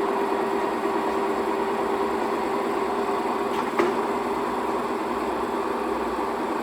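Pedersen VPU 201 milling machine running, a steady mechanical hum with a constant whine from the spindle drive. A single short click about four seconds in.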